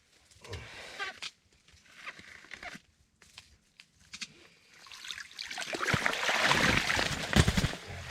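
Water splashing and slush crunching at an ice-fishing hole as a hooked burbot is hauled out. It starts about halfway through and is loudest near the end, with a few low thumps.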